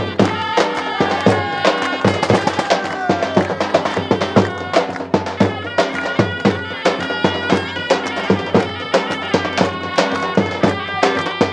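Instrumental folk dance music: a reedy wind melody over a steady drone, with a quick, regular drum beat.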